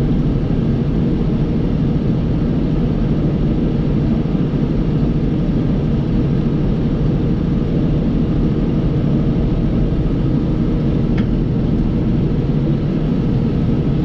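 John Deere 5075E tractor's diesel engine running steadily, a constant low drone with no change in speed.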